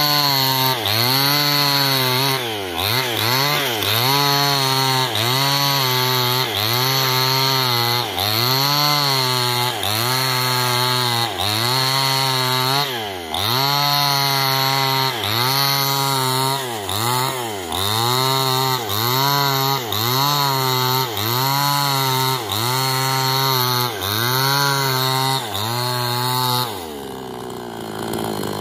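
Stihl chainsaw ripping lengthwise through an old coconut-palm trunk, running hard under load. The engine pitch dips and recovers about once a second as the bar bites into the cut. Near the end the engine drops lower for about a second, then revs back up.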